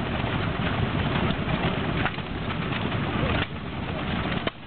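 1915 Galloway 2¼ hp single-cylinder hit-and-miss stationary gas engine running: a steady low chuffing with a sharp knock about every second or so as it fires and then coasts between firings.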